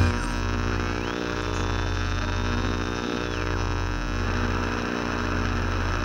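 Lightsaber sound-font idle hum: a steady low electric hum that dips briefly about once a second. A faint high whistle rises about a second in, holds, and falls away at about three and a half seconds.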